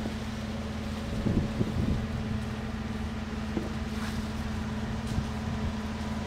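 Steady low motor hum, with a few brief rustling noises between about one and two seconds in.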